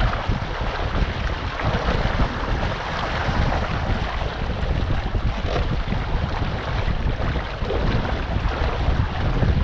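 Wind buffeting the GoPro's microphone over water rushing and splashing along the hull of a Catalina Capri 22 sailboat under sail: a steady, unbroken rushing noise.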